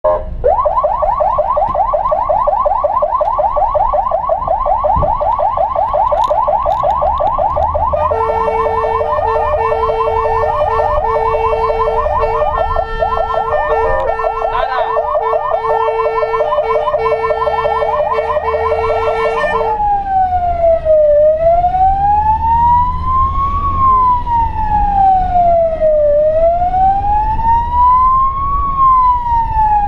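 Fire-service emergency siren on a Peugeot Boxer light rescue vehicle, heard from inside the cab while driving on emergency signals. It begins as a fast warble; about eight seconds in a steady horn note sounds with it, and about twenty seconds in it changes to a slow wail rising and falling about every five seconds, with the van's engine running underneath.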